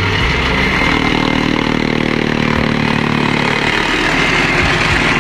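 Chaff cutter running steadily while fresh green grass is fed into it and chopped.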